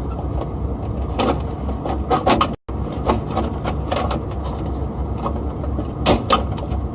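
Small sharp clicks and scrapes of wire spade terminals and a screwdriver being handled at a contactor, over a steady low rumble, with a brief dropout of all sound near the middle.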